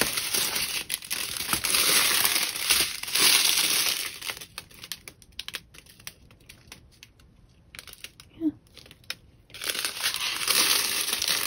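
Small plastic bags of diamond painting drills crinkling as they are handled: a spell of about four seconds, a quieter stretch with a few light ticks, then crinkling again near the end.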